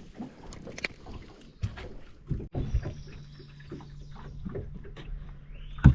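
Scattered knocks and clicks of a small fish being landed and handled in a boat. A steady low hum comes in about halfway through, and a sharp knock near the end is the loudest sound.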